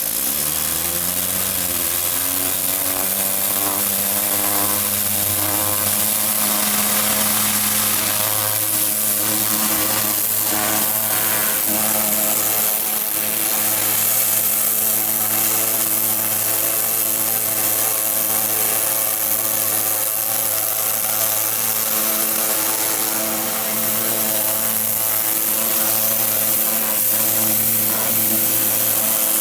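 Gas-engine pressure washer running: the engine rises in pitch in the first second, then runs steadily under the loud hiss of the high-pressure water spray.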